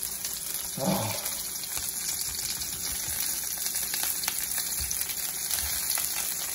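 Onion halves and garlic sizzling steadily in hot oil and rendered chicken fat in a cast iron skillet, with small scattered crackles.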